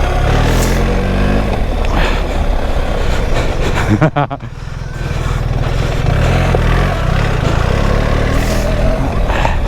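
BMW R 1300 GS Adventure's boxer-twin engine running under throttle on a soft trail, its revs rising and falling. About four seconds in the sound drops off sharply for a moment, then picks up again.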